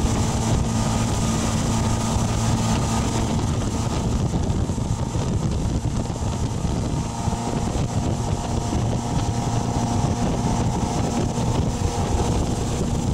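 Tow boat's engine running steadily at speed, a low drone under heavy wind on the microphone and rushing water.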